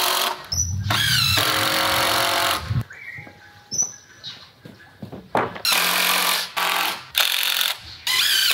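Cordless drill driving screws into wooden 2x6 boards. There are two long runs of about two seconds each, then a quieter stretch with knocks from boards being handled, then several short bursts near the end.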